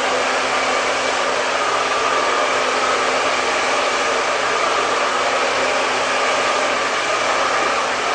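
Hand-held hair dryer blowing steadily: a constant rush of air with a faint steady whine.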